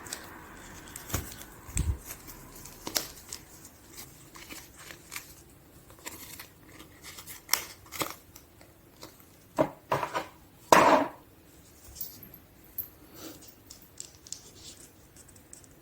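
Handling noises from unboxing a watch: a series of small clicks and taps with brief rustles of packaging, the loudest a rustle or scrape about a second long near the end.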